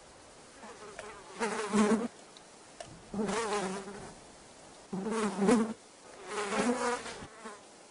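A man moaning in pain through clenched teeth: four strained, wavering whimpers, each under a second long, from the fresh wound where his finger was cut off.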